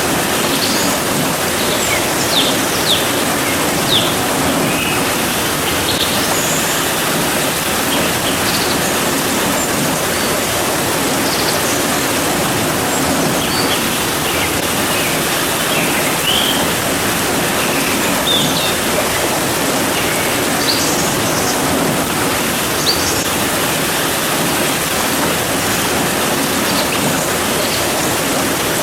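Steady, dense rain hiss with no let-up, with scattered short bird chirps high above it.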